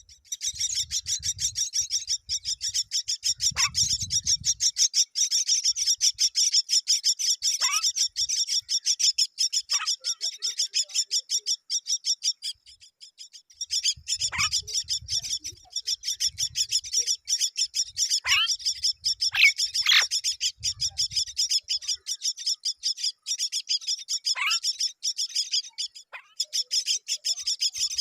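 Myna nestlings begging: a continuous run of rapid, high-pitched calls, several a second, with a brief break about halfway through. Sharp falling call notes cut in now and then, along with low thumps at times.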